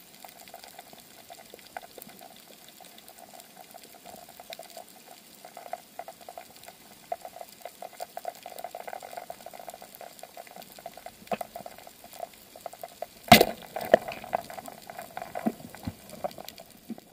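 Underwater reef ambience: a steady crackle of small clicks heard through the camera's housing. About thirteen seconds in comes one loud, sharp crack, the speargun firing at the barracuda, followed by a short spell of louder clicks and knocks.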